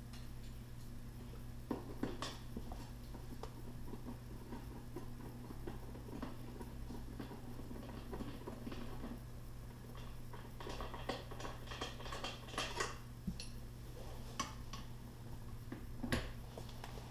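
Faint clicks and clinks of hand tools as a Torx bit and socket are handled and worked on a car seat's mounting bolts, with a denser run of quick clicks past the middle, over a steady low hum.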